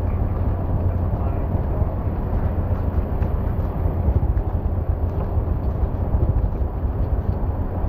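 A car driving on a wet road in the rain: a steady low road rumble with a hiss of tyres on the wet surface.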